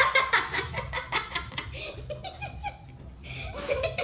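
People laughing, in quick repeated bursts for about the first second and a half, with more laughing and voice sounds near the end.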